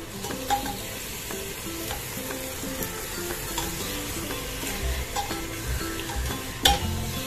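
Minced mutton sizzling in hot mustard oil in a pressure cooker while it is stirred with a perforated metal spoon that scrapes and clicks against the pot, with a sharper knock near the end. The meat has just gone into the hot oil and is being fried.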